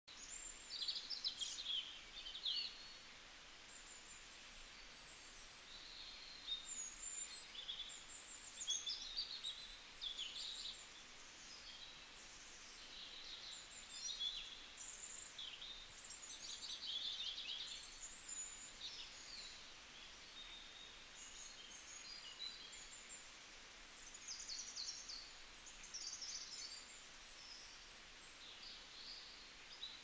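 Songbirds singing over one another, a busy mix of short whistled phrases, chirps and rapid trills with brief lulls between.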